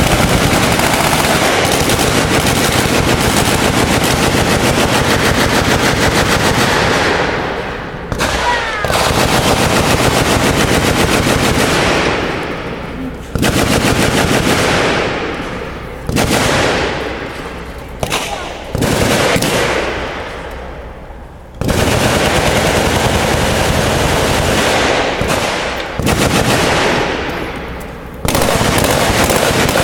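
Many machine guns firing at once in dense, overlapping automatic fire. Several times the din thins out into fading echoes, then heavy fire starts up again all at once.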